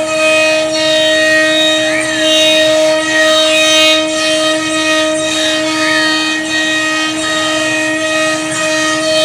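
CNC wood router at work: the spindle holds a steady whine while the drive motors' pitch rises and falls in short arcs, again and again, as the head moves through the pattern.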